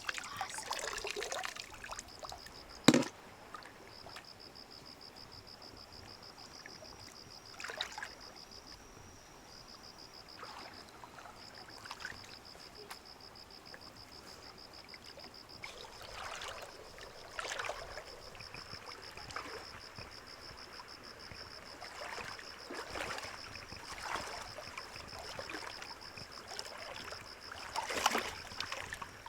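Water splashing and trickling now and then, with one sharp knock about three seconds in. A steady, high, fast-pulsing trill runs under it from about two seconds in.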